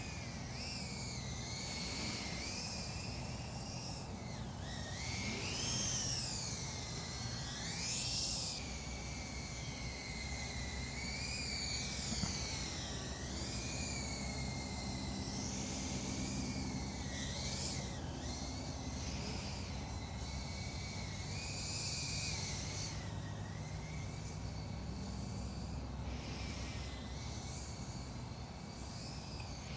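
FPV quadcopter's brushless motors whining, the pitch swooping up and down constantly with the throttle, with the sharpest climbs about six and eight seconds in.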